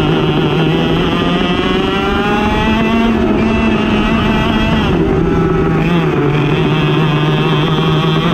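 Racing kart engine at full throttle, its pitch climbing steadily, then dropping sharply about five seconds in as it comes off the throttle, and climbing again.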